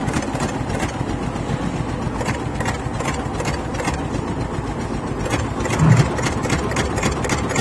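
Six-head Kaesar computerized embroidery machine running, a steady mechanical hum with a fast, even clatter of clicks from the stitching heads. A brief low thump sounds about six seconds in.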